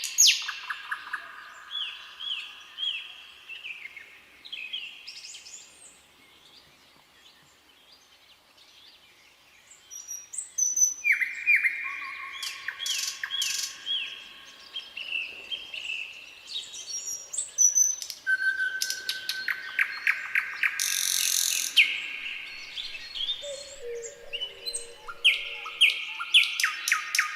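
Nightingale singing in separate phrases of repeated whistled notes and fast rattling trills, with a pause of a few seconds near the middle.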